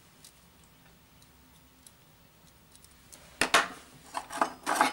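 Faint tape hiss, then from about three and a half seconds in a quick run of short, sharp scrapes and clicks: someone striking a light to ignite barbecue charcoal.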